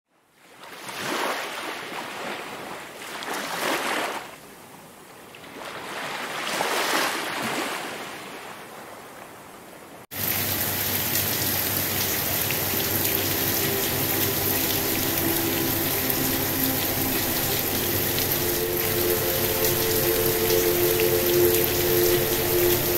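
Three slow swells of rushing noise, then an abrupt cut about ten seconds in to steady soft rain. A few seconds later an ambient drone of low held tones comes in under the rain.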